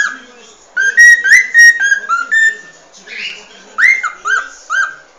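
Cockatiel whistling its natural song: quick runs of short, arched whistled notes. One run starts about three-quarters of a second in and lasts nearly two seconds; after a pause a second run comes about a second later.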